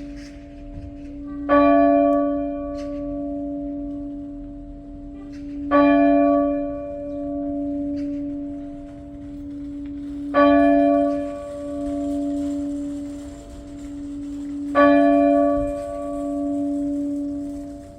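A single church bell tolled slowly, rung as the call to Mass: four strokes about four and a half seconds apart, each ringing on with a hum that wavers as it fades.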